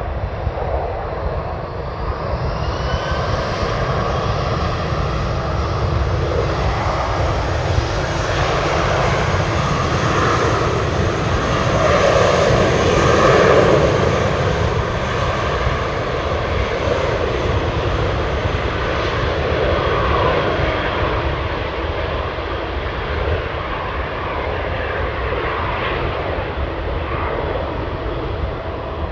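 Jet aircraft engines running as a plane passes: a steady roar that swells to its loudest about halfway through and then slowly eases off.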